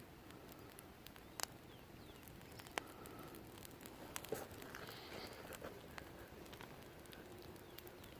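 Campfire roasting cashew nuts: faint crackling with a few sharp pops.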